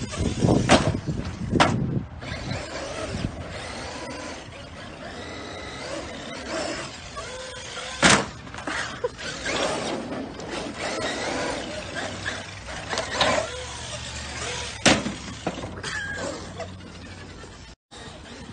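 Traxxas X-Maxx electric RC monster truck running on asphalt with its motor and tyres, punctuated by four sharp slams of the truck hitting the ground, the loudest about eight seconds in.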